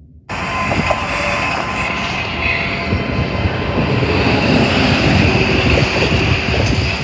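Train rolling past: a loud, steady rumble that cuts in abruptly just after the start and swells slightly.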